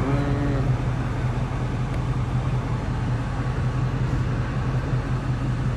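Vehicle engine idling close by, a steady low hum.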